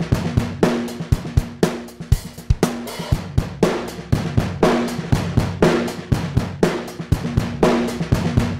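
Drum loop with kick, snare, hi-hat and cymbal played back through a DIY Tube Screamer overdrive pedal: a steady beat with sharp hits.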